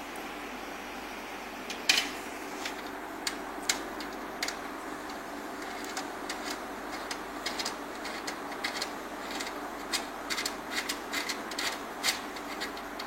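Bolts and nuts being handled and fitted by hand: scattered small clicks and taps, coming more often in the second half, over a steady background hiss.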